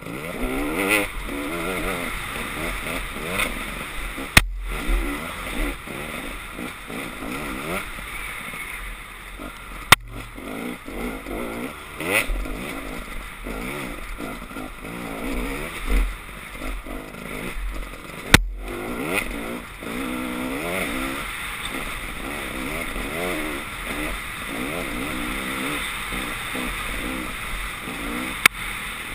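Dirt bike engine revving up and down while riding, its pitch climbing and dropping again and again with throttle and gear changes. Four sharp knocks are spread through it.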